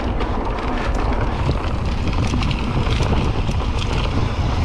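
Wind buffeting the camera microphone over the rumble of a mountain bike rolling fast on dirt singletrack, with scattered sharp ticks and clatter from the tyres and bike.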